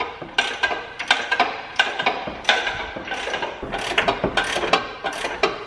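Hand ratchet wrench clicking in quick, uneven strokes as it backs out the front bumper's mounting bolts.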